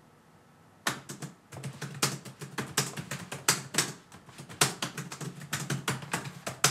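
Rapid typing on keys: a fast, uneven run of key clicks. It starts about a second in and ends with a sharp, loud final stroke.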